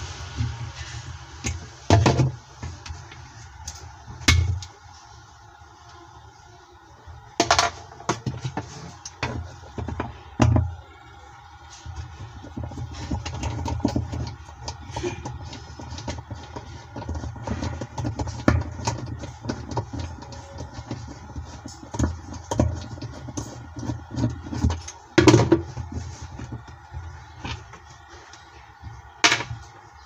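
Screwdriver clicking and knocking against a washing machine's plastic pulsator and its centre fixing screw as the screw is worked loose, in irregular sharp knocks with a few louder ones.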